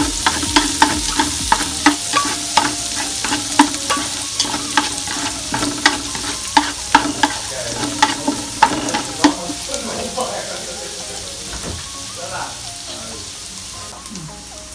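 Chopped aromatics sizzling in hot oil in an aluminium pot, stirred with wooden chopsticks that click against the pot about two or three times a second. The clicking stops about two-thirds of the way through, and the sizzle carries on a little quieter.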